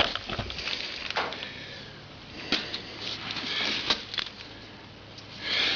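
Plug insertion tool being worked and pulled out of a tubeless tyre, leaving the glued rubber repair plug in the puncture: scattered sharp clicks and short scraping rustles.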